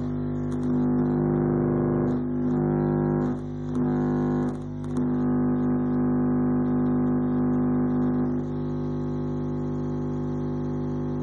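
Subwoofer driven hard by an amplifier, playing a steady, buzzy low bass tone. It drops out briefly three times in the first five seconds and settles a little quieter at about eight seconds.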